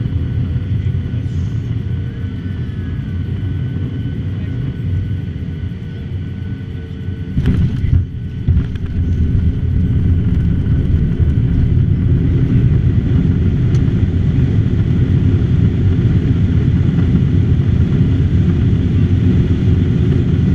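Boeing 737-800 with CFM56-7B engines landing: a steady low rumble with faint engine tones, then a sudden thump about seven and a half seconds in, likely the wheels touching down, followed by a louder steady rumble as it rolls out on the runway.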